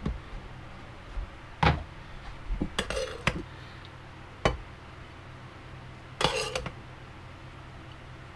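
Metal serving spoon scraping and clinking against an electric pot and a bowl as cooked rice is scooped out: a few sharp knocks and two short scraping runs.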